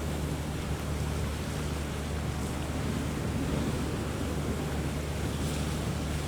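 Rough sea and strong wind: waves washing, with wind buffeting the microphone and a steady low hum underneath.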